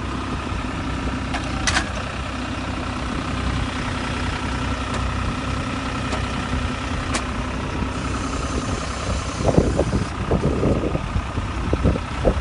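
Tractor engine running steadily as the tractor pulls a sensor-guided inter-row hoe. A few irregular knocks come about three-quarters of the way through.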